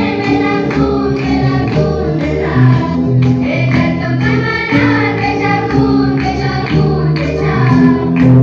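Music: a song with sung vocals over instrumental backing.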